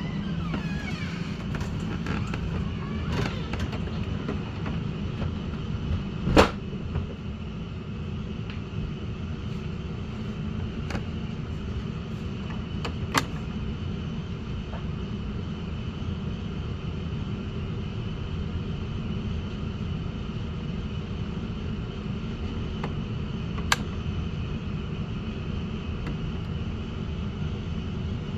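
Coleman Mach RV rooftop air conditioners running with a steady fan hum, while the second unit's compressor is still held off by its time-delay relay. Three sharp clicks come through it, the loudest about six seconds in, then at about thirteen and twenty-four seconds.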